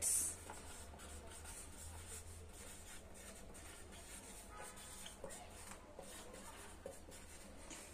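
Marker pen writing on a whiteboard: faint scratching strokes as words are written, over a low steady hum.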